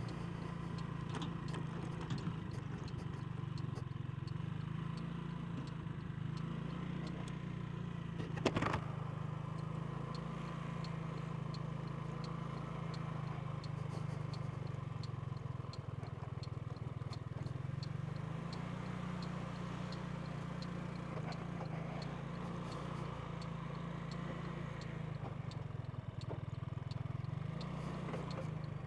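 Genuine Buddy 125 scooter's single-cylinder four-stroke engine running steadily at low revs, with one sharp knock about eight and a half seconds in.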